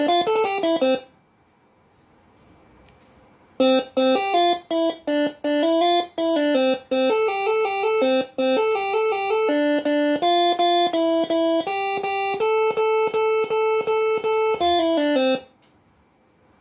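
Moreno MS5 six-trumpet telolet basuri air horn playing a tune of short stepped notes. It breaks off about a second in, then starts again with a long run of quick notes that stops shortly before the end.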